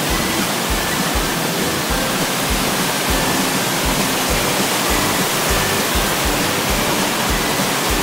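Loud, steady rush of whitewater at Dhuandhar Falls on the Narmada, pouring through a rocky gorge. Background music with a steady beat plays under it.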